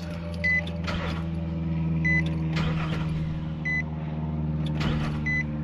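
Nissan pickup/SUV engine running steadily, turning over the newly fitted serpentine belt and its pulleys. A high dashboard warning chime beeps over it about every one and a half seconds, four times.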